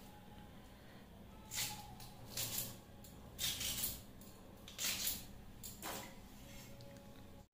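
Small knife cutting into a peeled kohlrabi bulb: about five short, faint scraping cuts, a second or so apart.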